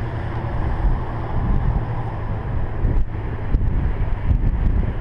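Wind buffeting the microphone: a heavy, gusting low rumble, with a couple of short knocks about three seconds in.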